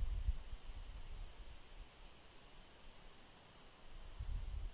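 Crickets chirping, a short high-pitched chirp repeating about twice a second, with a low rumble near the start and again near the end.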